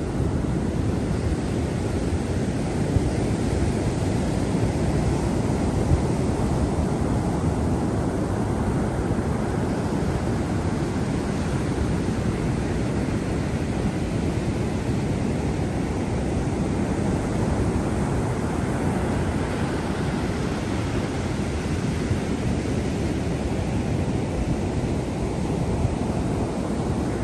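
Sea surf washing ashore as a steady low rush, swelling slightly now and then, with wind rumbling on the microphone.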